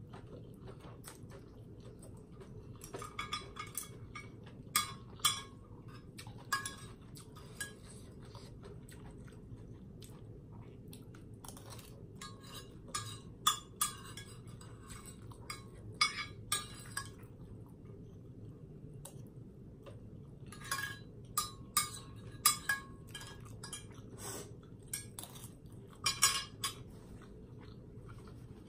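Metal spoon clinking and scraping on a plate, in several clusters of sharp clinks, as the last noodles are gathered up, with quiet chewing in between.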